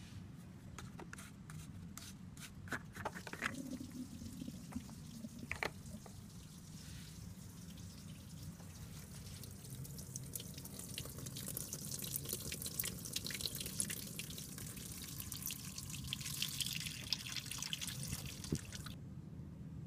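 Engine coolant draining out of a Peugeot 406's radiator, trickling and dripping from about ten seconds in and stopping abruptly near the end. Before it come a few clicks and knocks as the cooling system is opened by hand.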